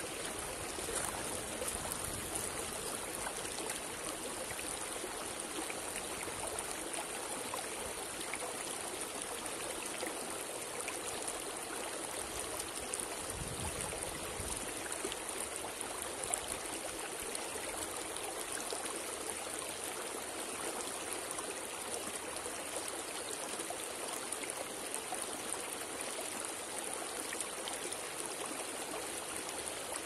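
River flowing: a steady, unbroken rush of moving water.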